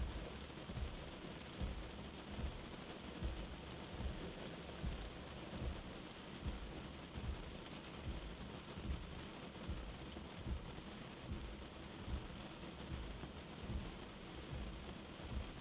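Steady rain falling with an even hiss, and frequent irregular low thumps underneath.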